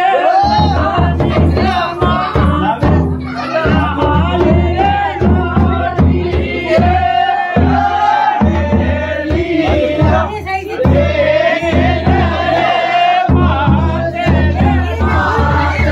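A group of men singing a Holi folk song together over the steady beat of a large chang frame drum. The voices are loud and sometimes shouted.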